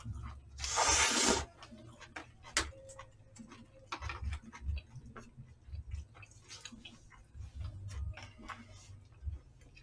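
Eating at the table: scattered clicks of chopsticks and spoons against plastic takeout trays, with a loud rushing hiss lasting under a second, about a second in.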